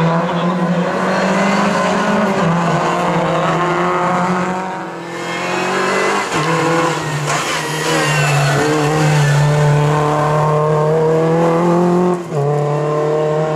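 Rally car engine, a Renault Clio's, revving hard through tight bends on a tarmac stage, its note rising and dropping with gear changes. The sound dips briefly about five seconds in and breaks off near the end as the shot changes.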